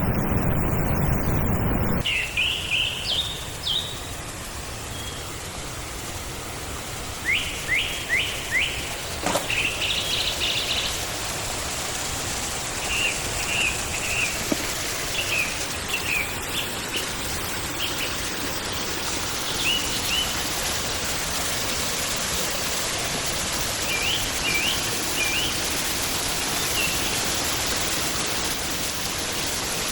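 Small birds chirping in short repeated phrases over the steady rush of a forest stream, which grows a little louder toward the end. For the first two seconds a low rumble sounds, then cuts off abruptly.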